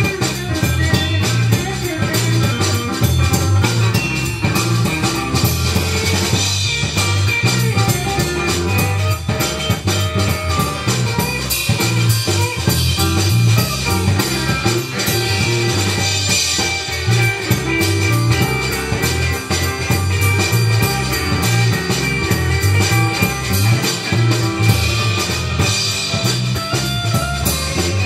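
Live rock band playing an instrumental passage, with a Fender Telecaster electric guitar out front over bass guitar and a drum kit keeping a steady beat.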